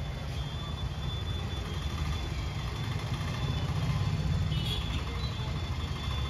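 Street traffic: a steady low engine hum of motor vehicles on the road, under a general background hiss.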